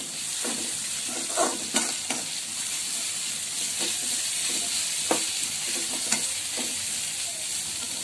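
Shredded chicken and onions frying in oil in a metal pan with a steady sizzle. A slotted metal spatula stirs the mix, scraping against the pan about once a second.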